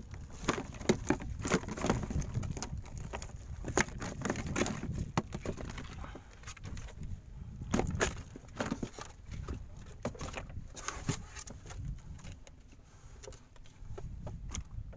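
Irregular knocks, scrapes and rustles of gloved hands moving fish and a plastic bag around inside a styrofoam cooler.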